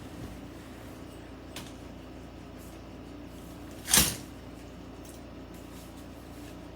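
A single loud, sharp clack about four seconds in, with a fainter click earlier, from the frame of a folding umbrella clothes drying rack being worked open.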